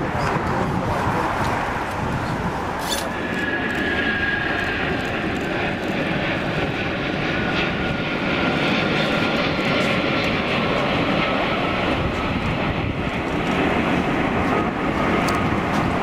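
Cargo jet's engines running steadily, with a faint high whine in them that falls slowly in pitch.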